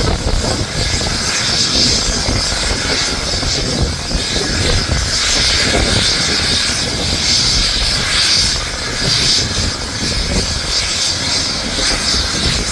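Eurocopter EC135 air-ambulance helicopter running on the ground with its rotor turning: a steady high turbine whine over the rotor's rumble, swelling and easing slightly.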